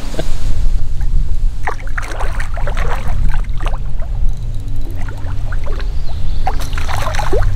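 Water splashing in irregular bursts as a hooked fish thrashes at the surface while it is played on ultralight tackle, over a steady low rumble.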